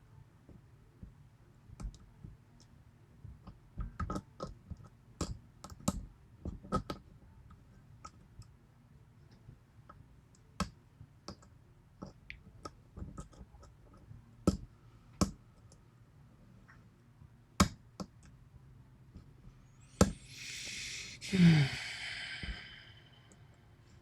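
Lock pick and tension wrench clicking irregularly against the pins of a Yale 6-pin pin-tumbler cylinder with spool drivers, as the lock is being picked. Near the end comes a louder rushing noise about two seconds long, with a short falling low tone.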